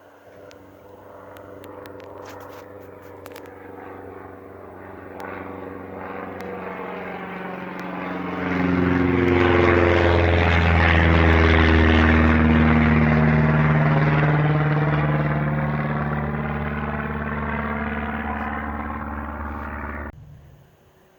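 Propeller airplane landing: the engine and propeller drone grows louder, peaks as the plane passes close about ten seconds in with a drop in pitch, then fades away. The sound cuts off abruptly near the end.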